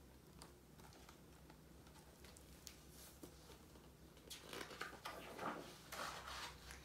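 Faint rustling and soft clicks of a hardcover picture book being handled and its pages turned, growing louder about four seconds in.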